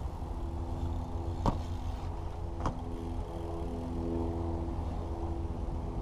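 BMX bike clacking twice on concrete, sharp hits about a second and a half in and again just over a second later, over a steady low rumble and hum.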